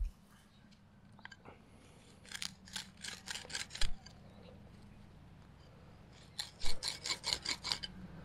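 Two runs of quick rasping scrapes, about five a second, from digging through soil to recover a shallow metal target.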